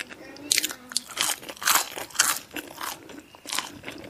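Crunching and chewing on crispy Jollibee Chickenjoy fried chicken: a string of sharp, irregular crunches, loudest near the middle.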